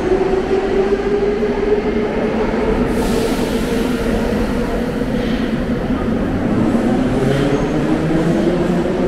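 Metro train's electric traction motors whining over a loud rumble, the whine slowly rising in pitch as the train gathers speed.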